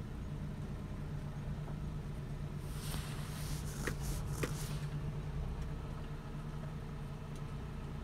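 Engine running steadily with a low hum. Partway through, a hissing rush lasts about two seconds, with two short sharp squeaks inside it.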